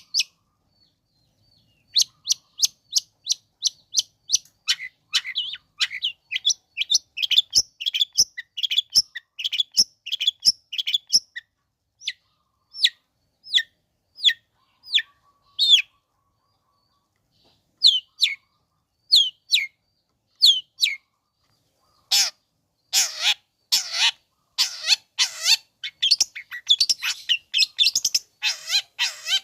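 Long-tailed shrike (cendet) singing: a quick run of sharp, high chirps at two or three a second, broken by a short pause around the middle, then louder harsh rasping calls over the last several seconds.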